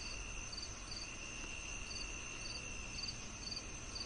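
Insects chirping, cricket-like: short high chirps repeating evenly about twice a second over a steady high trill.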